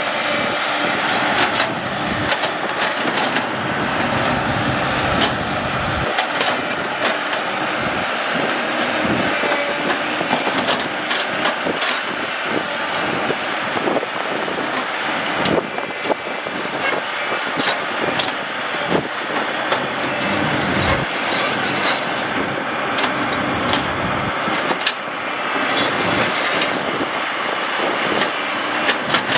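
Caterpillar 312C hydraulic excavator's diesel engine running steadily under load while it digs, with frequent sharp metallic clanks and knocks from the bucket, arm linkage and tracks.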